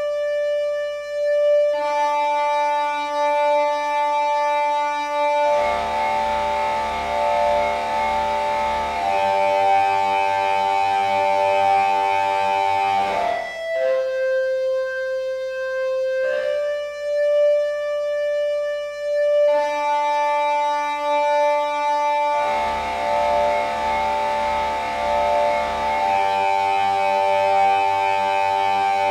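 Raw dungeon synth music: sustained, buzzy synthesizer notes stacked in layers that build up in steps, drop back to a few notes about thirteen seconds in, then build up again in the same pattern.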